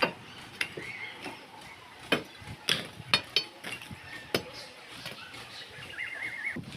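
Irregular sharp knocks and clinks of demolition work on an old building, with a brief warbling high-pitched call near the end.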